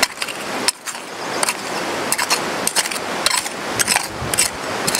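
A small hand pick scraping and clinking against gravel and stones as it digs sediment out of a crack under a boulder, in irregular sharp strokes a few a second.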